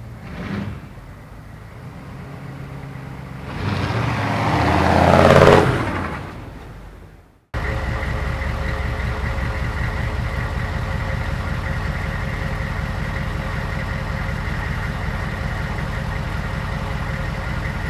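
1993 H1 Hummer's 6.2 L naturally aspirated V8 diesel, straight-piped through a fording exhaust. It first builds to a loud peak about five seconds in as the truck drives up, then falls away. After an abrupt cut it idles steadily.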